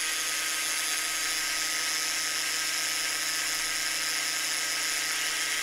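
Bosch 18V brushless cordless angle grinder running free at full speed with no load, at about 8,800 RPM: an even whine over a steady hiss.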